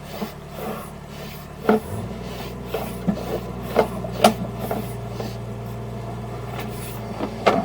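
Sewer inspection camera's push cable being drawn back through a drain line: scattered sharp knocks and clicks over a rubbing, scraping noise. A steady low hum starts about two seconds in.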